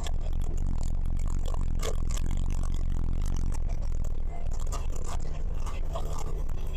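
Skid steer engine running steadily, with repeated scraping and clattering as its bucket works loose dirt.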